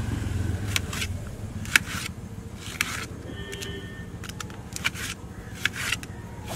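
A small knife clicking sharply against a steel plate, roughly once a second, as a tomato is cut into wedges. A low rumble fades out in the first second.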